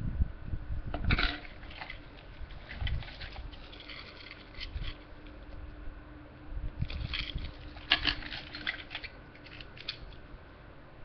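Close handling noise of pin-back badges: a clear plastic sleeve crinkling and badges clicking against each other under the fingers, in scattered bursts over a faint steady hum.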